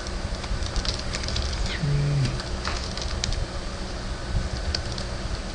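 Computer keyboard keys tapped in short irregular runs as numbers are entered, over a steady low hum.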